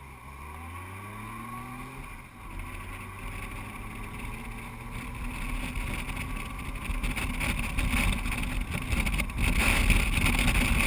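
Motorcycle engine pulling away, its pitch rising over the first two seconds. Then wind and road noise rush over the engine, growing steadily louder as the bike gathers speed.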